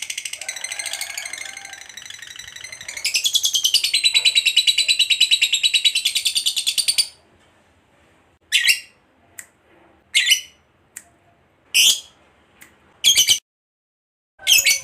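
Lovebird's long, rapid chattering trill that breaks off abruptly about halfway through, followed by a handful of short, separate chirps roughly every second and a half.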